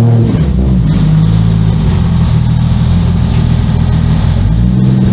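A car engine running at low speed, as when a car is idled and eased forward. It sits slightly higher in pitch for the first second and rises again briefly near the end.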